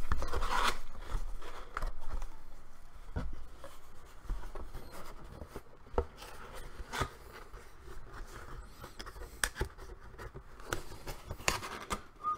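Cardboard Loot Crate box being handled and turned inside out: scattered rustling and scraping of card with light clicks and taps.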